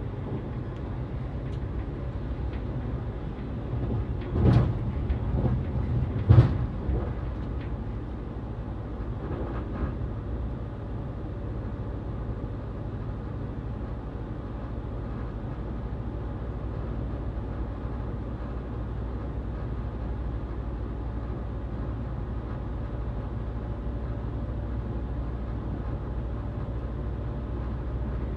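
Passenger train running, heard from inside the carriage as a steady low rumble. Two sharp loud knocks come about four and a half and six and a half seconds in, with a few lighter ones around them.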